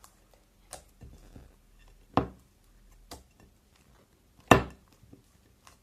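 A few sharp clicks and knocks of objects being handled on a table while making slime, the loudest about four and a half seconds in.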